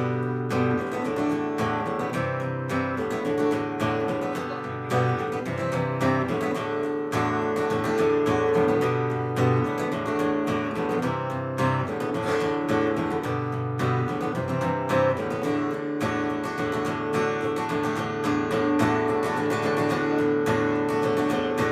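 Solo guitar strummed in a steady rhythm, playing the instrumental intro of a song, starting suddenly and changing chords every couple of seconds.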